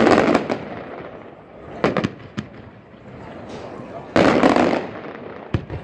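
Aerial fireworks going off: a loud crackling burst right at the start and another about four seconds in, with sharp single bangs between them and near the end.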